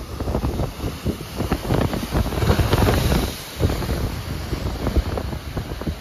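Rough sea surf breaking and washing close below, with wind gusting hard on the microphone. The wash swells to its loudest about halfway through.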